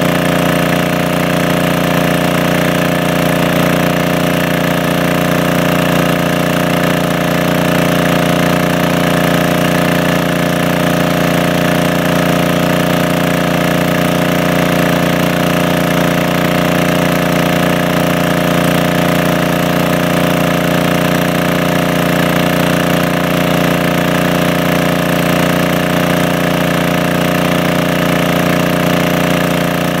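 Small engine-driven water pump running steadily at a constant speed.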